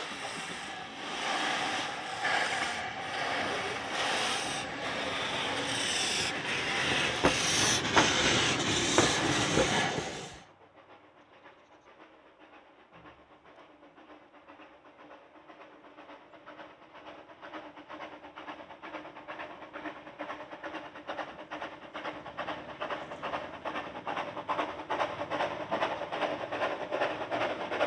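Two Kerr Stuart 'Tattoo' narrow-gauge saddle-tank steam locomotives hissing steam with irregular puffs, growing louder, until a sudden cut about ten seconds in. Then a narrow-gauge steam train is heard faintly from far off, its rhythmic exhaust beats growing steadily louder as it approaches.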